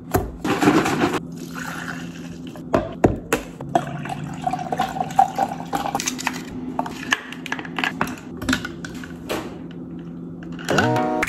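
Liquid pouring from a carton into a tumbler, then ice cubes from a plastic ice tray dropping into it with a run of sharp clicks. Music comes in near the end.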